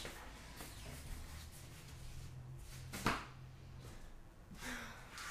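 Gym equipment being handled: one sharp knock about three seconds in over faint background noise.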